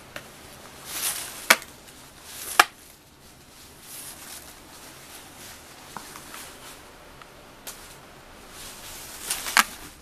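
A cat in a plastic cone collar scuffling while it plays with a toy: rustling swells, with a sharp tap a second and a half in, another a second later, and a third near the end.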